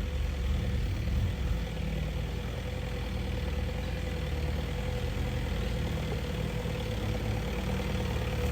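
A 4x4 off-road vehicle's engine running steadily at low revs, a constant low rumble with a thin steady hum above it.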